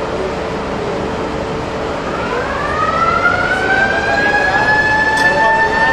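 A siren winding up about two seconds in: its pitch rises and then holds steady as it grows louder, over a steady background noise.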